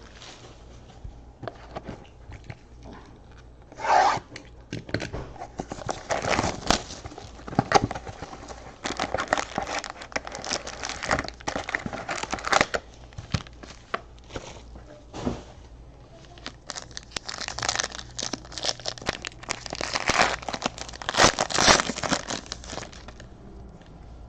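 Trading-card pack wrappers being torn open and crinkled, with cards rubbing and sliding against each other as they are handled, in irregular rustling bursts with sharp clicks.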